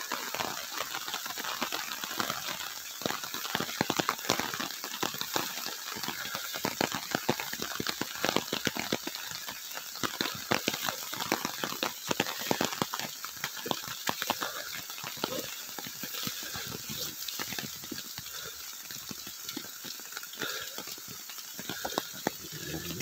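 Footsteps and legs brushing through tall grass and undergrowth: a dense, irregular crackle and swish, busiest in the first half.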